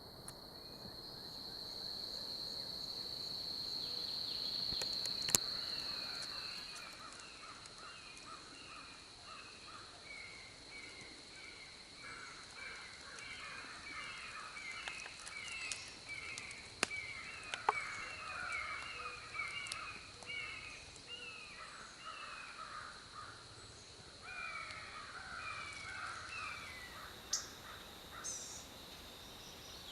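Birds calling over and over in woodland, many short repeated calls that thin out near the end. A few sharp clicks sound along the way, and a steady high whine is heard in the first few seconds.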